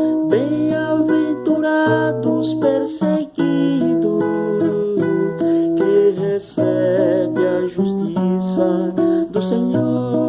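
Acoustic guitar playing a run of held chords, changing every second or so, in a passage without sung words.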